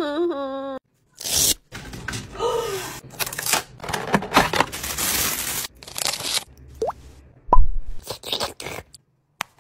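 Cardboard packaging of a FURminator deshedding tool being handled and torn open: a run of short crackling, tearing and crunching noises. A brief wavering cry comes at the very start, and a sudden loud thump comes about three-quarters of the way through.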